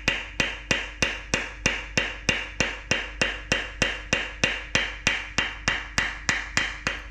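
Light, steady metal-on-metal tapping, about three taps a second, each with a brief ring: a thin rod being tapped against an old exhaust donut seal in a Corvair flat-six's exhaust port to make the stuck seal spin loose for removal.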